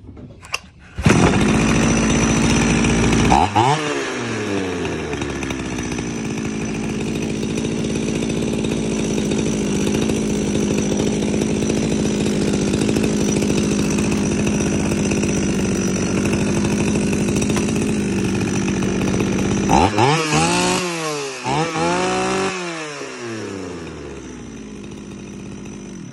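G460 two-stroke chainsaw engine firing up about a second in, running fast briefly and then dropping to a steady idle. It is revved up and back down twice near the end, then settles back to a quieter idle. The seller says this used saw still runs well.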